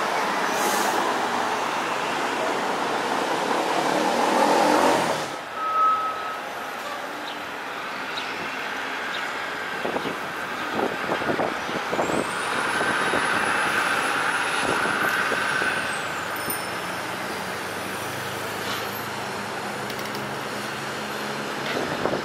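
City traffic and streetcars: an older streetcar running past close by, loud for about the first five seconds. Then the sound drops to steadier, quieter traffic as a low-floor Flexity streetcar approaches on its tracks, with a few knocks and a high whine that rises, holds for a few seconds and falls away.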